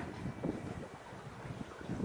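Wind buffeting the microphone: an uneven low rumble that comes in gusts.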